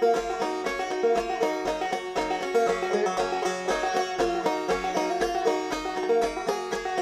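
Instrumental music with fast plucked-string picking over a steady bass pulse about twice a second.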